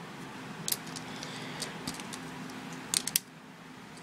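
A few light clicks and taps of Rilakkuma pens being handled and laid down on a table, two of them close together about three seconds in, over a steady faint hiss.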